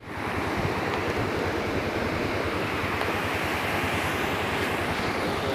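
River in heavy flood, its fast churning water making a loud, steady rush with a deep rumble underneath.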